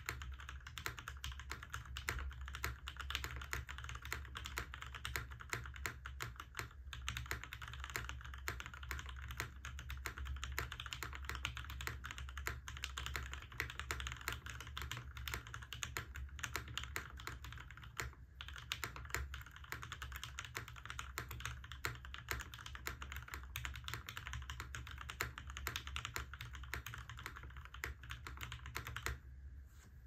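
Fast continuous typing on a JJW Cloudline aluminium-case mechanical keyboard with Zeal Tealios V2 linear switches and PBT keycaps, a dense run of keystroke clicks that stops just before the end.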